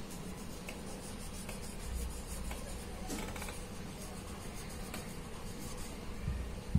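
Marker pen writing on a whiteboard: faint, short scratchy strokes one after another as words are written out in cursive.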